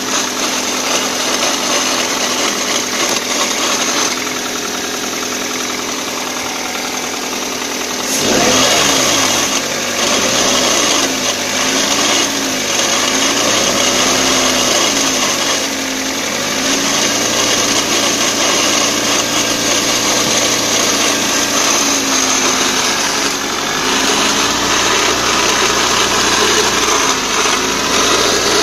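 2004 Toyota Corolla CE's four-cylinder engine running in neutral with a steady whirring note from the manual transmission. The owner hopes the noise is a worn clutch throwout bearing rather than the gearbox itself. About eight seconds in the sound changes suddenly, and from then on the note rises and falls in pitch.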